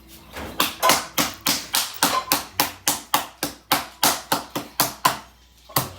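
A spoon tapping rapidly and evenly against a small container of slime, about five taps a second for roughly five seconds, then stopping.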